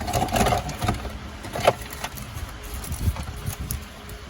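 Scattered knocks, clicks and a brief rattle of parts and tools being handled while a pickup's interior is taken apart, with one sharp click a little under two seconds in.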